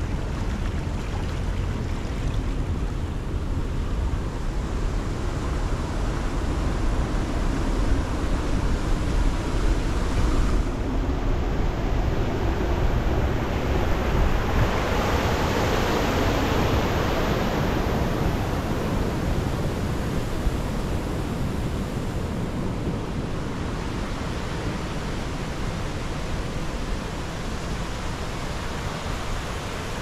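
Steady rush of the river Gacka's flowing water, with a strong low rumble; it grows louder for several seconds around the middle, then settles back.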